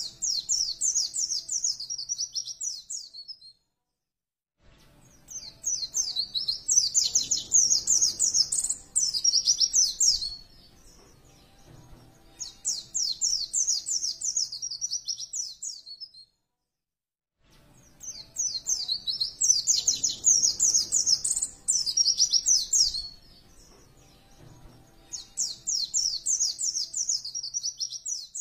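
White-eye (pleci) singing in five bursts of rapid, high twittering song, each a few seconds long, with short pauses between them.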